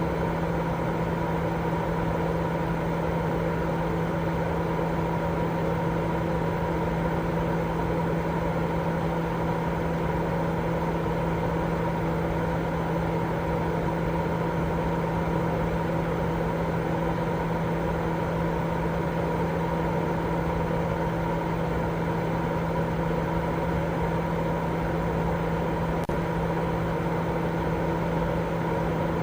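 Continuous white noise for sleep: a steady, unchanging rushing hiss with a low steady hum running through it.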